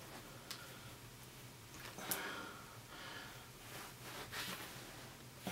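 Faint handling noises of plastic laptop parts: a few light clicks and soft rustles as the screen's plastic trim bezel is handled and positioned.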